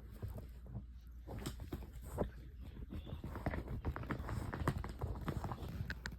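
A dog's claws and paws clicking and tapping on a hard floor as it moves about, in a quick irregular patter that grows busier about halfway through.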